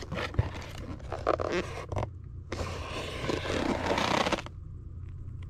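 Handling noise from a small cardboard box with a toy RC truck on it being turned and slid on a tabletop: a few light knocks in the first two seconds, then a scraping rub from about halfway, over a steady low hum.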